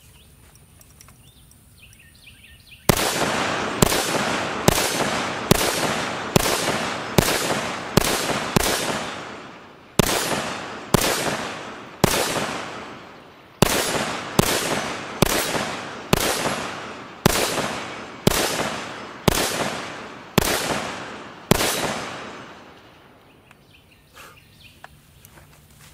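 Armalite AR-180 rifle in .223 fired semi-automatically, about twenty single shots at a steady pace of roughly one to two a second, each dying away quickly. The shooting starts about three seconds in, with a short pause near the middle, and stops a few seconds before the end.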